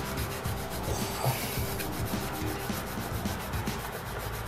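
Tissue scrubbed rapidly back and forth over the solder side of a Commodore 64C circuit board with isopropyl alcohol, cleaning off flux after desoldering: a quick run of scratchy rubbing strokes.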